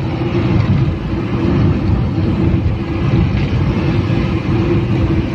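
Car driving through a road tunnel, heard from inside the cabin: steady road and engine noise with a low hum, made louder by the tunnel walls.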